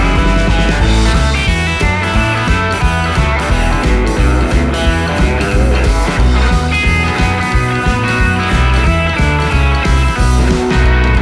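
Background rock music led by electric guitar, with bass and a steady beat.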